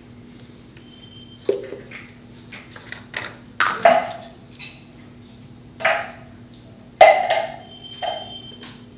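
A small glass spray bottle and a plastic water bottle being handled while water is added to a homemade hair spray. About half a dozen sharp clicks and knocks of the bottles and their caps come at irregular intervals, over a steady low hum.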